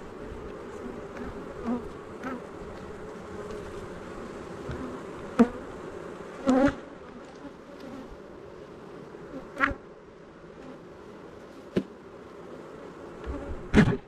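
Honeybees buzzing steadily around an open hive, broken by a handful of sharp clicks and knocks, the loudest just before the end.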